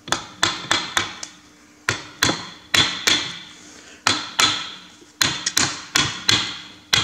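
A heavy hammer striking the steel housing plate on a Massey Ferguson 135 rear axle shaft, tapping it down over the new oil seal to seat it. About twenty sharp metal-on-metal blows in quick uneven bursts, each with a short metallic ring.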